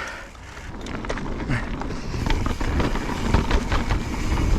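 Mountain bike being ridden on a dirt trail: wind rushing over the microphone and tyres rolling on dirt, with scattered clicks and knocks from the bike rattling. It grows louder over the first couple of seconds as speed builds.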